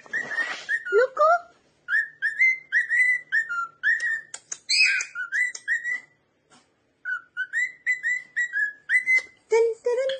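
Cockatiel whistling a song: a long run of short, rising whistled notes, several a second, with a pause of about a second midway.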